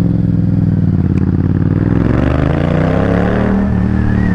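Yamaha XSR700's 689 cc parallel-twin engine running under way as the motorcycle accelerates, its pitch climbing through the middle and then levelling off.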